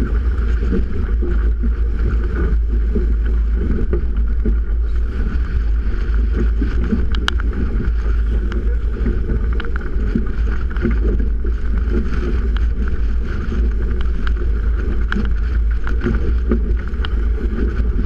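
Strong wind buffeting an action camera's microphone with a loud, steady low rumble, over the rush of wind and water as a Melges 24 sailboat drives hard through rough water. A few sharp ticks cut through, the clearest about seven seconds in.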